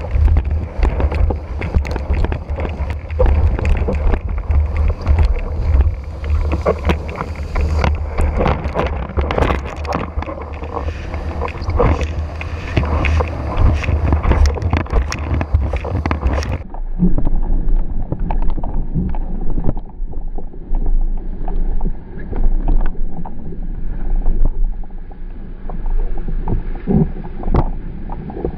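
Wind buffeting the microphone of a camera mounted on a windsurf rig, mixed with water rushing and spray crackling under a planing windsurf board as it carves through a gybe. A little over halfway through the sound changes abruptly to a duller, less rumbling wash of water and wind.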